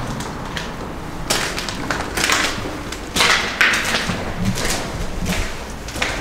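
Footsteps scuffing, about half a dozen uneven steps.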